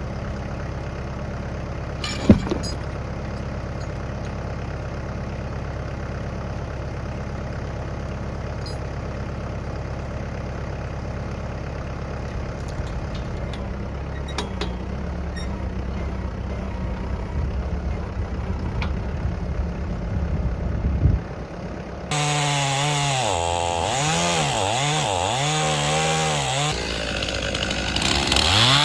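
An engine idling steadily with one sharp knock a couple of seconds in. Then, after a cut, a chainsaw runs loud, its pitch rising and dropping again and again as it cuts through a large locust log.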